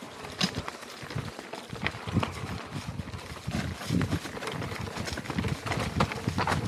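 Mountain bike riding down a loose, rocky trail: tyres crunching over stones, with frequent irregular knocks and rattles from the bike as it bounces over the rocks.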